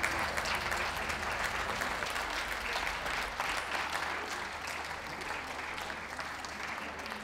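Crowd applauding steadily, easing off slightly in the second half.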